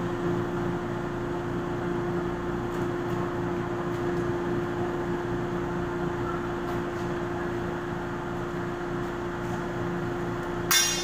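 Steady machine hum with a constant low tone, such as ventilation equipment makes, and a short sharp knock just before the end.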